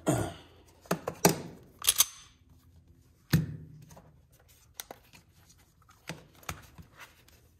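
A string of sharp clicks and knocks from a Sig P365 pistol and a digital trigger pull gauge being handled and set down on a rubber workbench mat. The loudest come in the first two seconds, with another sharp knock about three seconds in, then lighter ticks.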